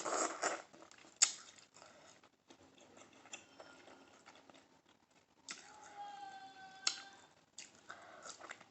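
Close-miked eating sounds of shell-on shrimp: mouth smacks, chewing, and small clicks and ticks of shell and fingers, with a sharp click about a second in. About two-thirds of the way through comes a thin high whine, held for over a second and falling slightly in pitch.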